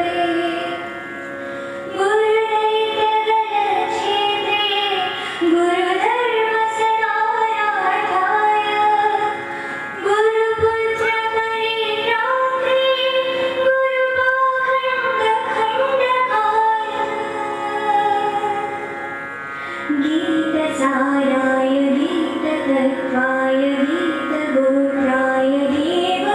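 A young woman singing a devotional Ganesh welcome song solo into a microphone. The melody is made of long held, ornamented notes, with short breaks for breath about a second in and again near 19 seconds. A steady drone accompaniment runs underneath.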